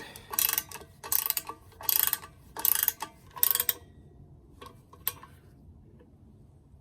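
Ratchet wrench tightening a nut down on a vise mounting bolt: about five quick ratcheting strokes in a steady rhythm, then two faint clicks near the end.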